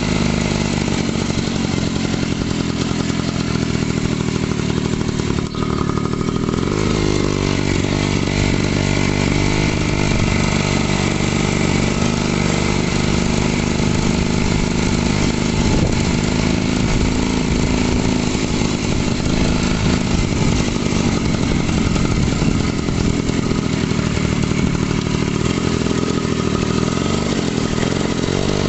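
Daelim motorcycle engine running: steady at first, then from about seven seconds in its speed keeps rising and falling.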